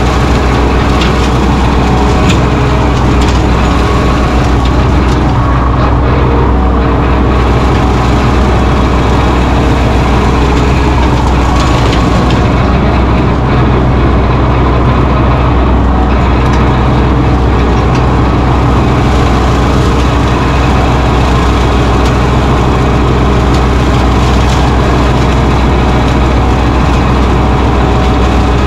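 Mahindra 1626 compact tractor's diesel engine running steadily.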